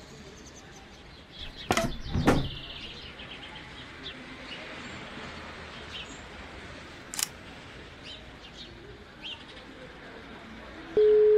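Songbirds chirping faintly in an outdoor ambience, with two sharp knocks about two seconds in and a lighter click a few seconds later. Near the end, a loud steady phone tone starts.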